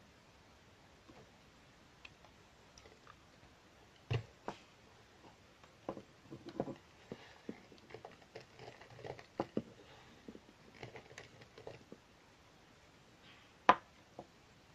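Carved blue soap shavings crumbled and crushed between the fingers: a run of small crackles and crunches through the middle, after a single thump about four seconds in, with one sharp click near the end.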